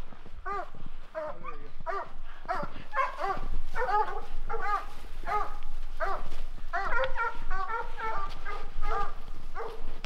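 Hunting hounds barking in quick succession, several voices overlapping.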